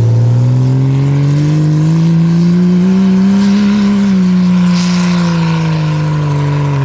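Jeep Cherokee engine at full throttle, driving up a steep sand dune under heavy load. The revs climb steadily for about four seconds, then sag as the slope steepens.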